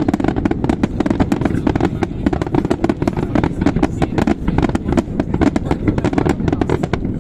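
Aerial fireworks shells bursting in a dense, continuous barrage: rapid overlapping bangs and crackles, several a second, with no let-up.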